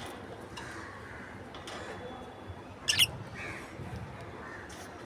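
Small pet parrots chirping faintly, with one short, sharp, loud squawk about three seconds in.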